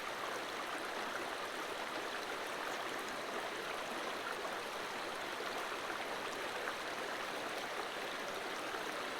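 Creek water flowing over rocks, a steady, even rushing with no breaks.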